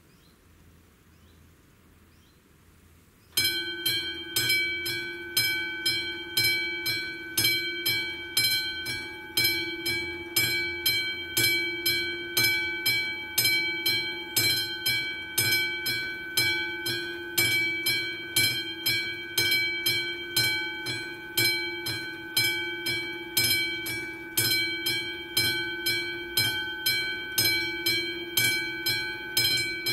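Railway level crossing's warning bell starting about three seconds in and then striking over and over in an even rhythm, each strike ringing. It is the crossing's warning that a train is approaching.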